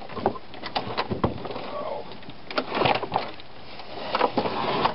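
Toro walk-behind lawn mower being moved and lowered off a wooden table: a series of knocks and clunks as its wheels and deck bump against the boards.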